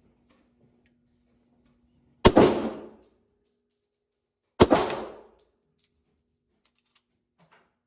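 Two shots from a Beretta 92S 9mm pistol, about two and a half seconds apart, each ringing out briefly.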